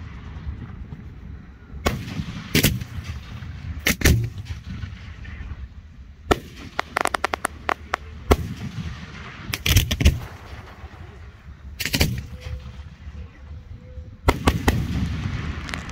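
Aerial firework shells bursting overhead: sharp booms every second or two, with a quick run of crackles about seven seconds in, and low rumbling echoes between the bursts.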